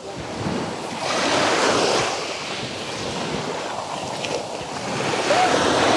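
Sea surf washing onto a pebble beach, swelling about a second in and again near the end.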